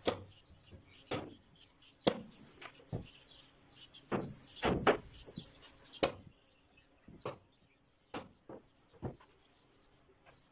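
Sharp wooden knocks and clicks, about a dozen at irregular intervals, from wooden pegs being worked into a wooden hook board and the board shifting on the work table, the loudest a little before the middle. Faint bird chirping sounds behind for the first half.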